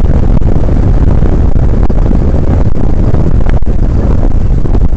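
Dual 15-inch car subwoofers pounding bass at very high volume, overloading the microphone into a loud, distorted low rumble.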